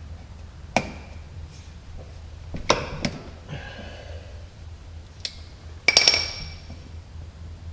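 Adjustable wrench clicking on the steel drain plug of a Kubota tractor's front axle housing as it is fitted and turned, a few sharp metal clicks, then a louder ringing metallic clink about six seconds in. A low steady hum runs underneath.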